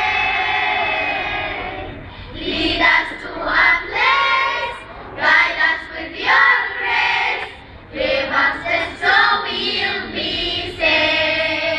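Girls' children's choir singing together: a long held note at the start, then a run of shorter sung phrases, and another long held note near the end.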